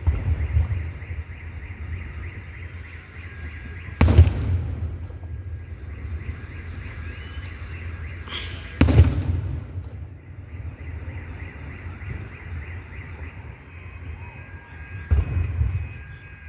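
Fireworks salute shells bursting: four deep booms spread over several seconds, two of them opening with a sharp crack, and a short crackle just before the third, over a steady low rumble.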